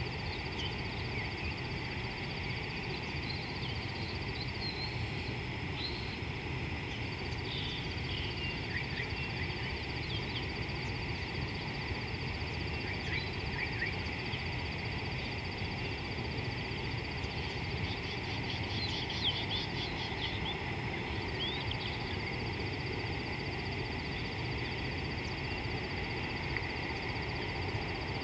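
Outdoor bush ambience: a steady low rumble and a steady high-pitched whine, with scattered short bird chirps and a brief flurry of chirping calls about two-thirds of the way through.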